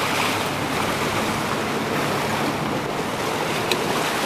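Steady rush of water and wind, with a low engine hum from a boat under way.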